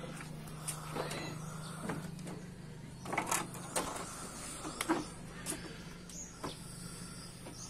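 A steady low hum runs under scattered light knocks and clicks, with a few sharper ones about three and five seconds in.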